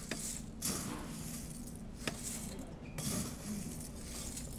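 Metal scoop digging cornflakes out of a bulk bin and tipping them into a plastic bag: dry rustling in short bursts with a couple of light clicks of the scoop, over a steady low hum.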